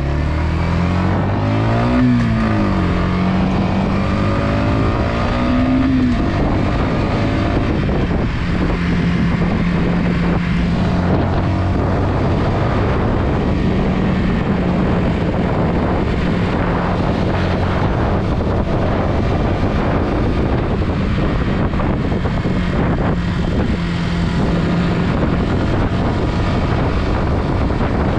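Yamaha XSR125's single-cylinder four-stroke engine under way: the revs rise and drop back twice in the first few seconds, then hold a steady pitch at cruising speed.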